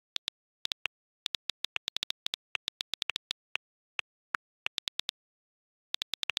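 iPhone on-screen keyboard clicks as a text message is typed: a quick, irregular run of light ticks, with a few short pauses between bursts.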